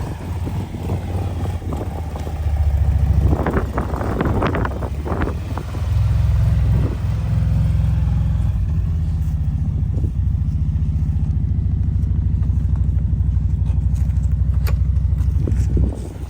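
Side-by-side UTV engine running steadily at idle, a low even drone. Around three to five seconds in it is joined by a brief clatter of knocks, and the drone drops away near the end.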